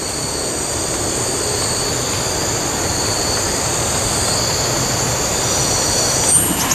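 A steady chorus of forest insects droning, with several high, even tones held throughout. A few brief clicks or rustles come near the end.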